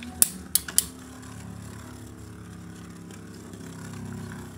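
Two metal-wheeled Beyblade spinning tops whirring in a plastic stadium. There are a few sharp clacks in the first second, then a steady humming whir, which grows a little louder near the end as the two tops rub against each other.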